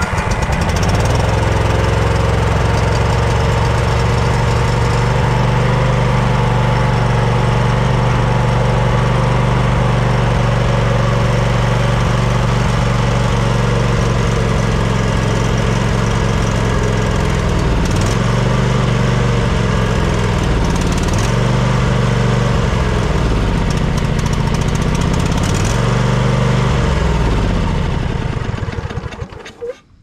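Snapper LT200 riding mower engine running steadily. From about two-thirds of the way through, its speed wavers and sags several times, and it dies just before the end. It is starving for fuel: the fuel pump isn't pumping well, and the engine runs only on the fuel left in a filter stuck into the carburetor.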